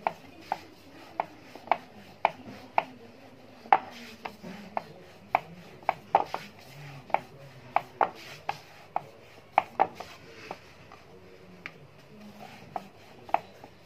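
Wooden rolling pin rolling out a thin round of dough on a wooden rolling board, with sharp wooden knocks about twice a second as the pin works back and forth; the knocks thin out near the end.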